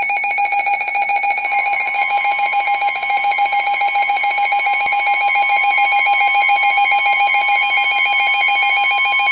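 Emergency Alert System attention signal: a loud, steady two-tone alert held without a break. It announces that an emergency voice message, here a severe thunderstorm warning, is about to follow.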